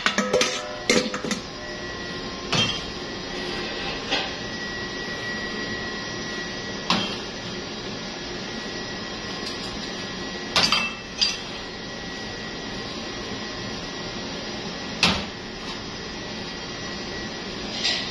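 Clinks and knocks of utensils and ingredients handled against a stainless steel mixing bowl: a quick cluster at the start, then single knocks every few seconds, over steady background noise.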